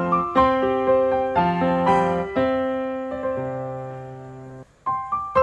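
Background piano music, single notes and chords struck one after another. A held chord fades out about four and a half seconds in, there is a brief break, and the playing starts again near the end.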